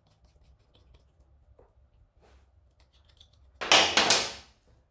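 Faint scattered clicks of hand work on a motorcycle's rear axle and chain adjusters. About three and a half seconds in comes a loud clattering burst that lasts about a second and fades.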